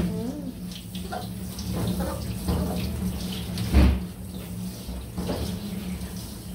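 Water spraying from a hose nozzle onto a small wet dog and splashing in a grooming tub, rinsing its dyed coat. A steady low hum runs underneath, and there is a single thump about four seconds in.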